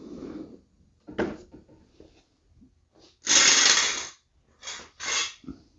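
Pressurized spray hissing at the mower's spark plug port: one burst of about a second, then two short bursts, after a sharp click.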